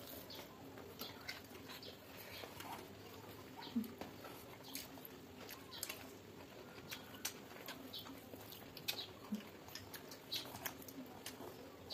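Quiet mouth and hand eating sounds: scattered small smacks and clicks of chewing, with fingers mixing rice on a steel thali plate.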